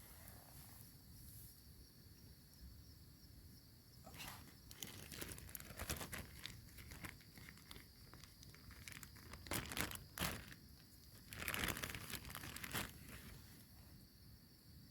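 Plastic packet of marshmallows crinkling and rustling as it is handled and torn open, in several bursts with short pauses.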